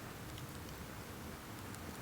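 Wood fire burning with a steady soft hiss and a few faint crackles.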